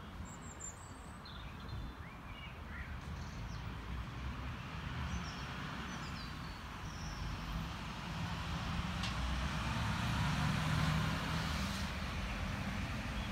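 Outdoor ambience of road traffic: a steady low rumble that swells as a vehicle passes about ten seconds in. A few short bird chirps come in the first half.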